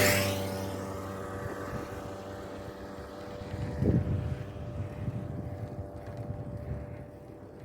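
A motor vehicle passes close by, its engine loudest at the start and fading away over the next few seconds. There is a single knock about four seconds in, over a low uneven rumble and some wind on the microphone.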